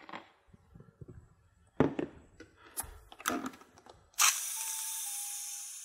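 A blender jar knocked down onto its base and its lid handled, a few sharp knocks and clicks. About four seconds in, a sudden loud hiss with a faint whistle, fading over about a second and a half: air rushing back into the Vidia BL-001 vacuum blender's evacuated jar as its vacuum is released.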